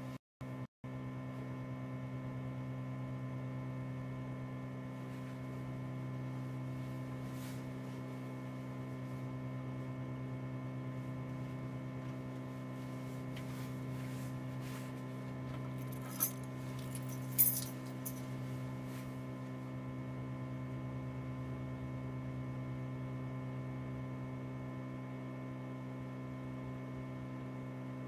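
Steady electrical mains hum of several evenly spaced pitches, which cuts out twice very briefly at the start. A few short clicks and a small rattle come about two thirds of the way in.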